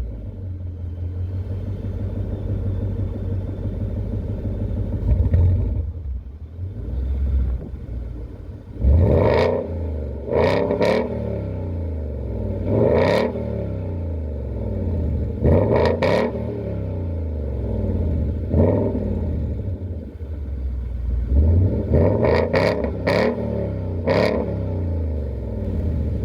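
2019 Ford Mustang GT's 5.0 L Coyote V8 through a Roush X-pipe (resonator delete) and Roush axle-back exhaust, idling, then blipped in about ten short revs from about nine seconds in, some in quick pairs and triples.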